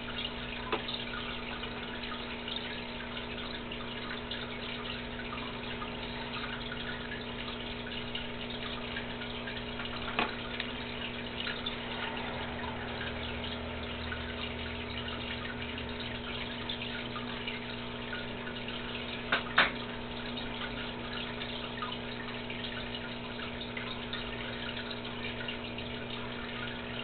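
Aquarium filter or pump running: a steady hum with trickling water. A sharp click sounds about ten seconds in, and a quick pair of louder clicks about two-thirds of the way through.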